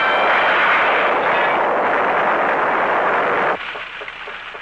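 Loud, dense rushing noise of tornado wind, which cuts off suddenly about three and a half seconds in. A quieter, even ticking of a teletype printer follows, about three ticks a second.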